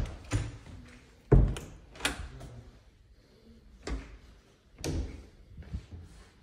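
An interior door being handled and walked through: a string of irregular knocks and thumps, about half a dozen, the loudest about a second and a half in.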